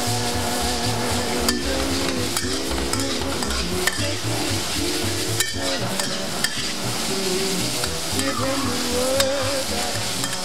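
Beef chunks sizzling in hot oil in a nonstick wok while a metal spatula stirs and scrapes them, with scattered clicks of the spatula against the pan.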